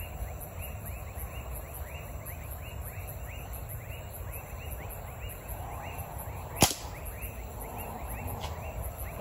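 Night insects chirping steadily, a short falling chirp repeating a few times a second over a fast high pulsing. About two-thirds of the way through comes one sharp, loud crack.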